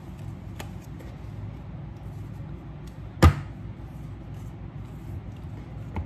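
Deck of cards being handled on a tabletop: one loud, sharp knock about halfway through, with a faint click early on and another near the end as the deck is set down on the table.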